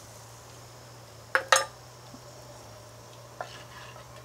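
Steel ladle clinking against a clay pot of gojju: two quick clinks about a second and a half in, then a fainter tap later, over a low steady hum.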